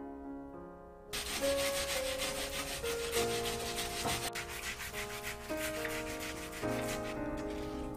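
A peeled Asian pear grated by hand on a flat metal grater tray: a rasping in repeated back-and-forth strokes that starts about a second in and stops near the end.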